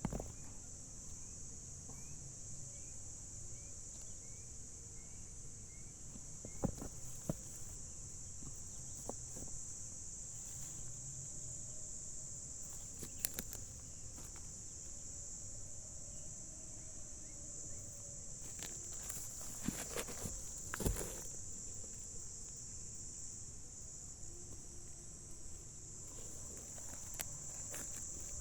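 Steady high-pitched insect chorus, like crickets or cicadas, with scattered light clicks and rustles.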